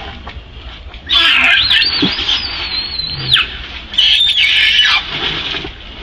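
Southern pig-tailed macaque screaming: a long high-pitched wavering scream starting about a second in and lasting about two seconds, then a shorter one about four seconds in.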